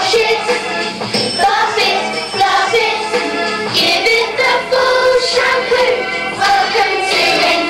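A group of children singing together with instrumental accompaniment.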